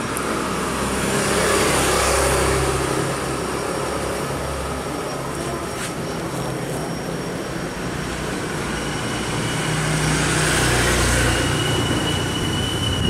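Road traffic passing, a steady rumbling noise that swells about two seconds in and again towards the end.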